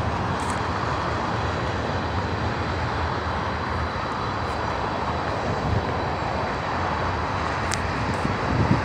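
Freight train of tank cars rolling past, a steady rumble and rush of steel wheels on the rails.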